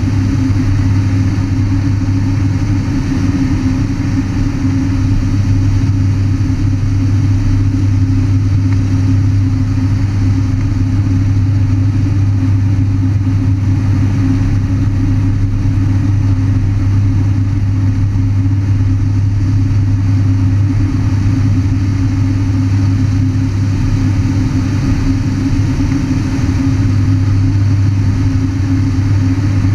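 Pratt & Whitney turboprop engine and propeller of a Thrush agricultural plane running steadily in flight, heard from inside the cockpit as a loud, even drone with a strong low hum.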